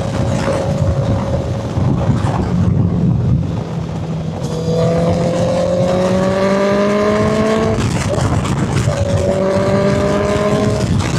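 Honda CB650F's inline-four engine sounding through a custom-made muffler, pulling under throttle. Its pitch climbs steadily, breaks off just under eight seconds in as at a gear change, then comes back steady at a slightly lower note.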